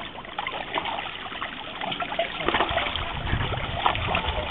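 Shallow pond water splashing and trickling as a pot is pushed through it and fish are scooped up inside a seine net. A low rumble joins about halfway through.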